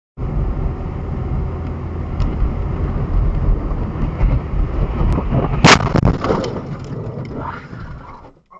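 Steady low rumble of a car driving on a slushy road, heard from inside the cabin through a dash cam. A little under six seconds in comes one loud bang, followed by about two seconds of clattering and rattling as the car slows sharply: a collision.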